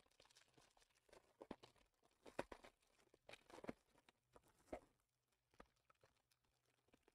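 Foil wrapper of a Bowman Draft Super Jumbo baseball card pack being torn open and crinkled by hand: a few faint separate rustles and tears, spread over the first five seconds.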